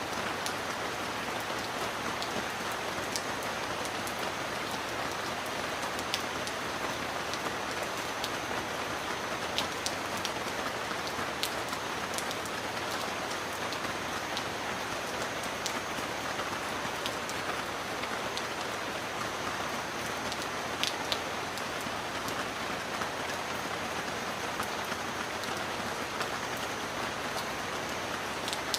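Steady rain falling, an even hiss with scattered single drops ticking sharply above it.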